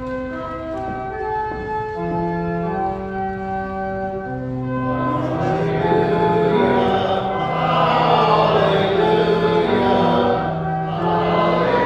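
Church organ playing the gospel acclamation, with steady held chords. About five seconds in, the congregation joins in singing.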